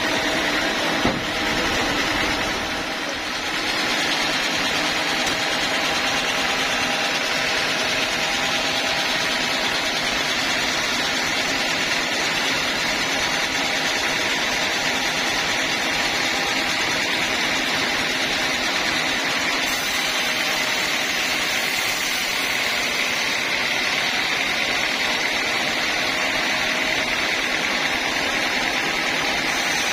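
Sawmill band saw running steadily, a constant machine noise with a faint steady hum, as it saws through a teak log.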